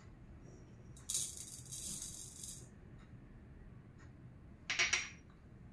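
Granulated sugar tipped from a small bowl into a portable juicer's plastic jar onto mango pieces: a grainy hiss lasting about a second and a half, then a shorter grainy burst near the end.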